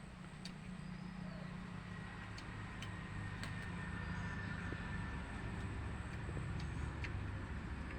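A low rumble like a vehicle engine, slowly growing louder, with scattered faint clicks over it.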